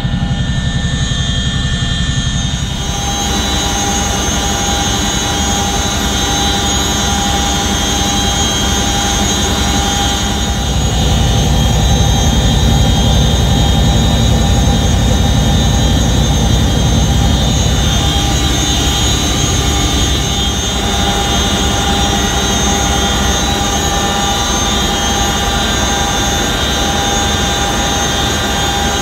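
Military helicopter in flight, heard from inside the cabin: a steady turbine whine of several high tones over the low drone of the rotors. It grows louder about a third of the way in and drops back about two-thirds of the way through.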